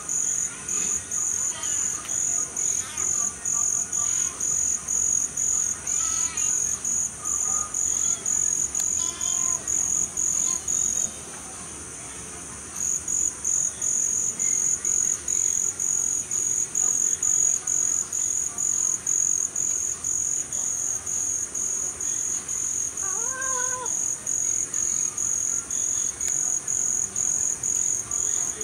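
Crickets chirping in a steady, even rhythm of about two to three high chirps a second over a continuous high insect trill. The chirping breaks off for a couple of seconds partway through.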